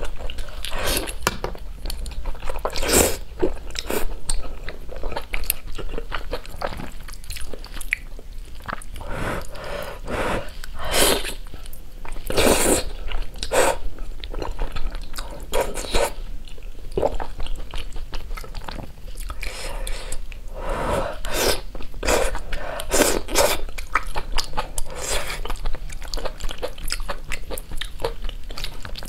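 Close-miked eating: noodles slurped up from a bowl in repeated short slurps, with wet chewing between them.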